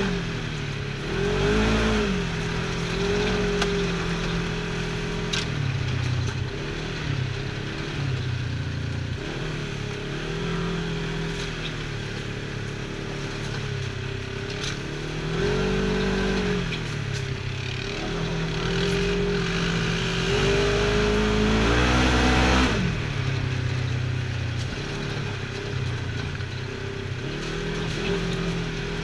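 Side-by-side UTV's engine running under way on a dirt trail, its pitch rising and falling again and again as the throttle is opened and eased. Once, about three quarters of the way through, a long climb in pitch cuts off sharply.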